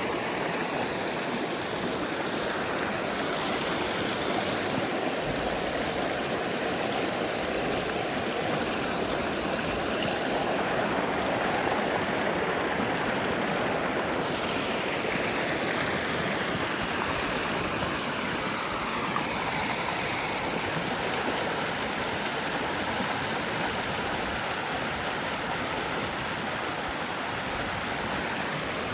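Rainwater runoff rushing in a steady, loud flow, like a fast stream.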